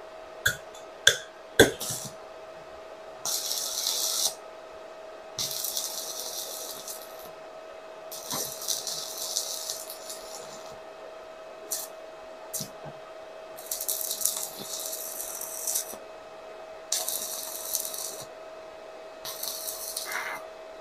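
Stick-welding arc from a 450-watt electric welder set to 37 amps crackling and hissing in six runs of one to two seconds each, welding rebar onto a thick steel tube. A few sharp clicks come near the start, and a faint steady whine runs underneath.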